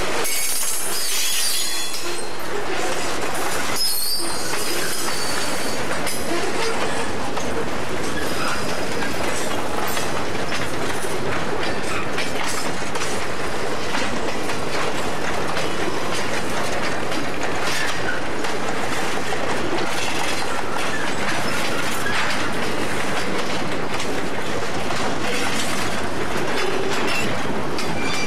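Freight train of boxcars rolling past close by: a steady rumble and rattle of steel wheels on rail, with clicks over the joints and brief wheel squeals. The track is in poor condition, rough enough to make the cars lean.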